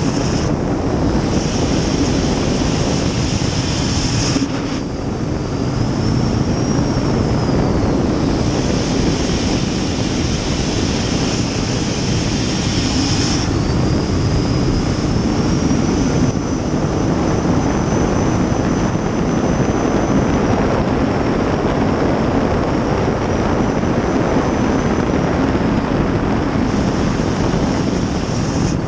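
Gas turbine engine of a 23-foot Outlaw Eagle river racing jet boat, over 2000 hp, running hard at racing speed, heard from inside the cockpit: a loud steady roar with a high whine that rises and falls in pitch, dipping briefly about four to five seconds in.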